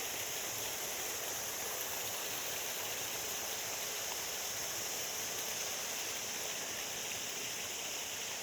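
Steady rush of flowing water at a sluice gate, with a steady high insect chorus over it.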